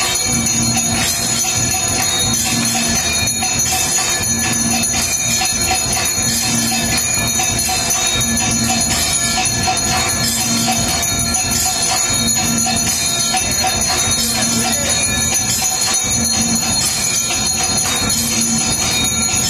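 Temple bells ringing continuously and densely during an aarti, with a low tone pulsing about every two seconds underneath.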